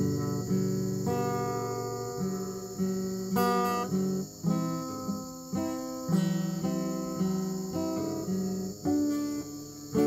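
Background music of plucked, guitar-like string notes, each note struck and left to ring and fade, one after another in a slow melody.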